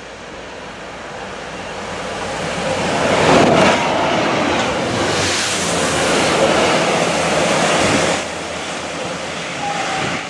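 A Railhead Treatment Train top-and-tailed by two Direct Rail Services class 66 diesel locomotives (two-stroke V12) running through the station at speed. The noise builds as the leading locomotive approaches and peaks as it passes about three and a half seconds in. The tank wagons then rush by with a loud hiss from the high-pressure water jets that clean leaf residue off the railhead, and the sound drops about eight seconds in as the rear locomotive goes by and recedes.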